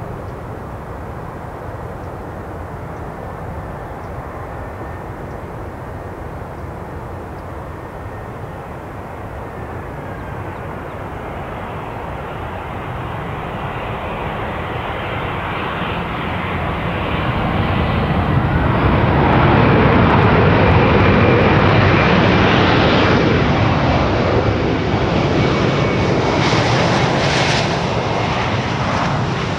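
Airbus A320 jet engines on a landing: a steady engine rush on approach that swells after touchdown into loud reverse thrust from the butterfly thrust reversers, loudest past the halfway point and easing a little near the end.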